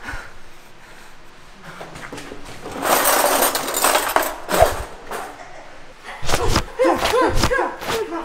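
Staged kitchen fight scuffle. A noisy rush comes about three seconds in. From about six seconds there is a quick run of hits and thuds mixed with grunts and short cries.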